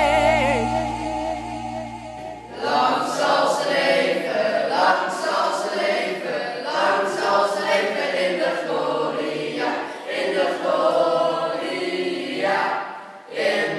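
A group of teenagers singing together a cappella, starting about two seconds in, with a short break near the end before the singing picks up again. Before that, the tail of a song with a solo vibrato voice fades out.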